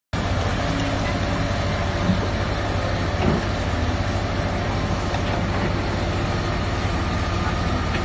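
Heavy diesel engine running steadily with a low, even rumble, with a couple of brief louder knocks about two and three seconds in.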